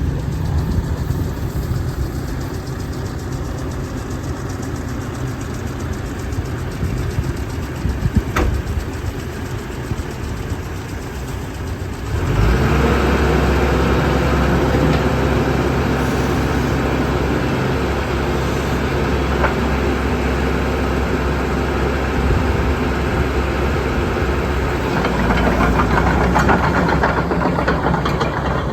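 JCB JS130 tracked excavator's diesel engine running at idle, then about twelve seconds in it steps up to a louder, busier note with a steady whine on top, and holds there.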